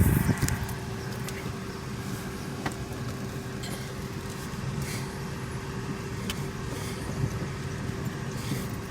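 Road and engine noise of a car driving slowly, heard from inside: a steady low rumble with a faint constant hum.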